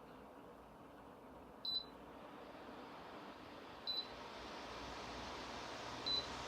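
Dreo tower fan beeping three times, about two seconds apart, over the faint steady rush of its airflow, which grows louder as the beeps go by.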